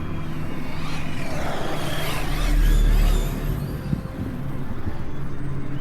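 High-powered RC car's electric drive running, its whine gliding up and down in pitch as it speeds up and slows. A heavy low rumble swells up about halfway through.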